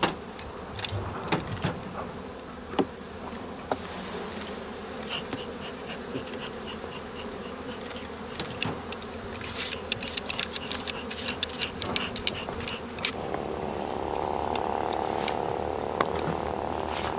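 Honeybees buzzing steadily in a dense hum around open hives, with frequent sharp clicks and knocks mixed in. About two-thirds of the way in the buzzing rises to a louder, higher-pitched hum.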